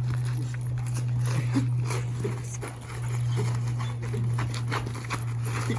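A pet dog whimpering softly in short bits over a steady low hum, with scattered small clicks.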